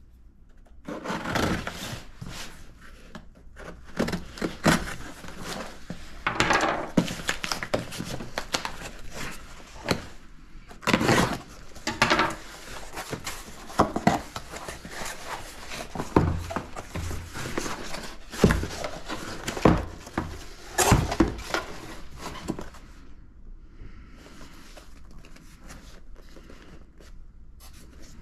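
A cardboard shipping box being cut open with a kitchen knife: the blade scraping and slicing through packing tape and cardboard, with irregular tearing and sharp knocks of the box on a wooden table. The sounds get quieter near the end as the packaging is handled.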